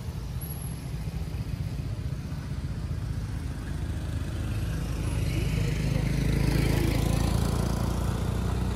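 A motor vehicle engine running steadily, growing louder in the second half and easing off near the end, as if passing by.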